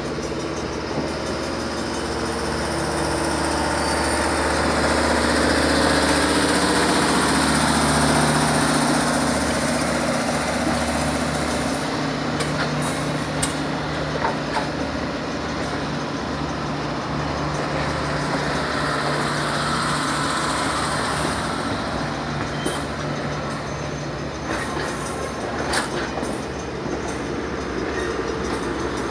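Railroad passenger cars rolling slowly past. Steel wheels rumble on the rails, with scattered sharp clicks and knocks from the trucks in the second half.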